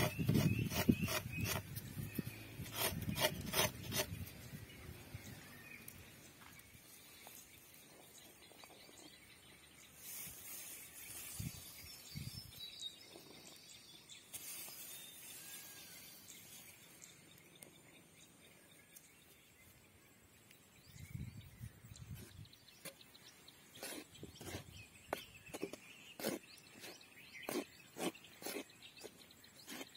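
Half a coconut scraped against a sharpened wooden stick, a run of rasping, crunching strokes that stops about four seconds in. A long quieter stretch of faint outdoor background follows. From about two-thirds of the way through, a wooden spatula scrapes and taps in a clay bowl of flour in short, uneven strokes.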